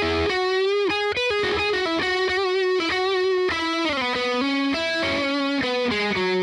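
Fender Telecaster Thinline electric guitar playing a lead line through a Keeley four-knob compressor with its sustain at noon, behind an overdrive. Single notes are bent up and held long with vibrato.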